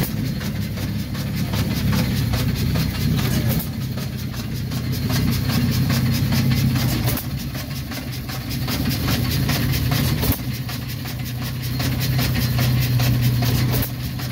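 Hit-and-miss stationary engine running, a steady low chugging with a fast even clicking, growing louder and softer every few seconds.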